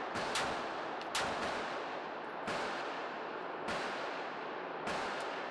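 Pistol shots from a 9mm Glock 19X fitted with a Radian Ramjet Afterburner compensator, echoing in an indoor range. About seven shots: two quick pairs in the first second and a half, then three single shots about a second apart.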